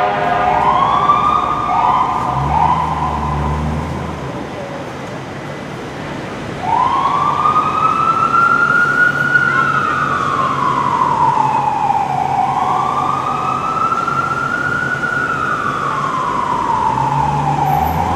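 Fire engine siren on a 2007 Spartan Gladiator/Smeal pumper responding in traffic. It starts with a few short rising whoops, and about six and a half seconds in it settles into a slow wail that rises and falls twice.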